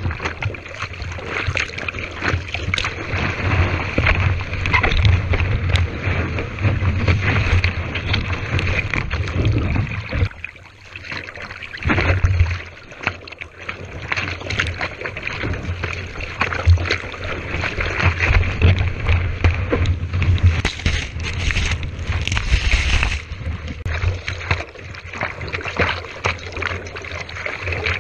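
Seawater splashing and sloshing over the nose of a surfboard and its board-mounted GoPro as a surfer paddles prone through whitewater, with a steady low rumble of water buffeting the camera housing. The splashing eases briefly about ten seconds in.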